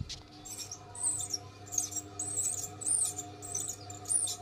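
Ceiling fan running with a low electrical hum and a rhythmic high-pitched squeak, about two a second, in time with the rotation: the sign of a dry or worn fan bearing.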